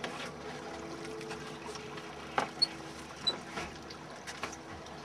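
Small fishing boat on the water: water lapping and trickling, a steady hum, and a few sharp knocks about halfway through.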